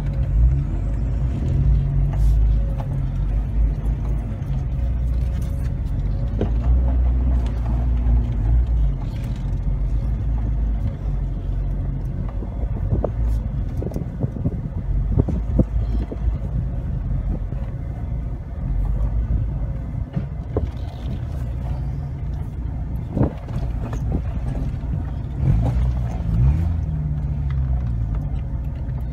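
Engine and drivetrain rumble heard from inside the cabin of an off-road vehicle crawling over a rough dirt trail, with scattered knocks and clicks. The engine pitch rises and falls briefly near the end.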